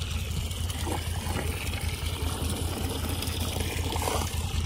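A motor running steadily, a low even hum with a fast pulse to it.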